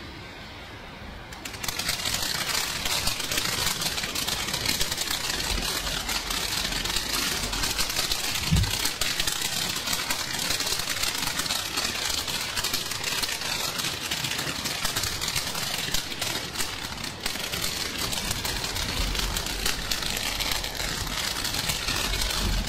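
Ground firework fountain burning: a steady, hissing spray of sparks with dense crackling that starts about a second and a half in, with one brief low thump about eight seconds in.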